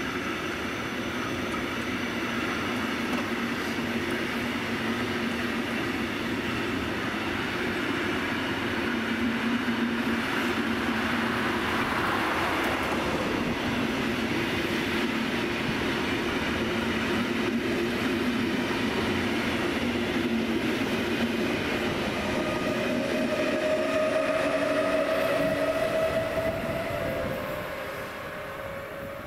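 ÖBB Railjet passenger coaches rolling past, pushed by an ÖBB class 1116 Taurus electric locomotive: a steady rumble of wheels on rail. Near the end a whine comes in as the locomotive goes by, then the sound falls away.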